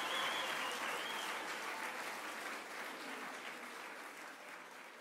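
Concert audience applauding after a song, the clapping fading steadily away.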